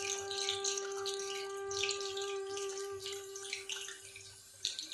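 Hot oil sizzling and spitting in irregular crackles around whole stuffed tomatoes being shallow-fried in a kadhai. A steady tone hums along with it and stops near the end.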